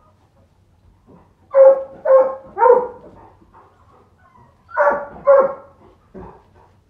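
Puppies giving short, high-pitched barks as they wrestle in play: three quick barks about a second and a half in, two more about five seconds in, then a fainter one.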